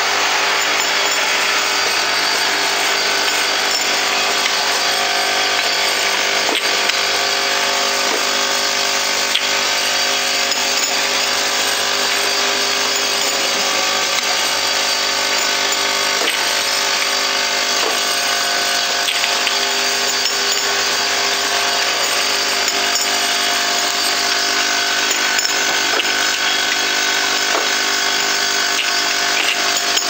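Automatic glass bottle feeding and capping line running: a steady mechanical whine from its motors and drives, with occasional light clicks.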